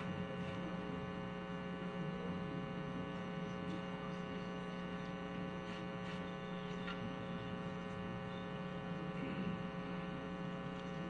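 Low, steady electrical mains hum made of several tones at once, with a few faint clicks, in an otherwise silent hall.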